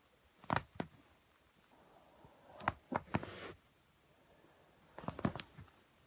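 Back joints cracking under manual adjustment: three quick clusters of sharp pops, about half a second in, around three seconds in and about five seconds in.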